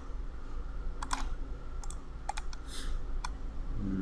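Scattered clicks of a computer mouse and keyboard, about half a dozen short sharp clicks at uneven intervals, over a low steady hum.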